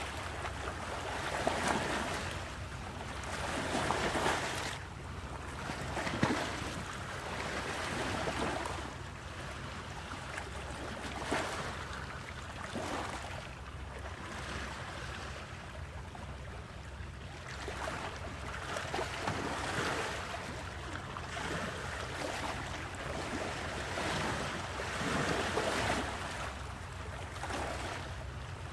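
Sea waves breaking and washing in, swelling in surges every few seconds over a steady low rumble.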